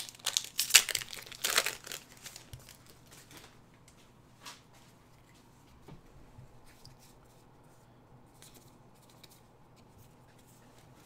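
Magic: The Gathering booster pack wrapper being torn open and crinkled, loudest in the first two seconds, then faint rustling and a few light ticks as the cards are handled.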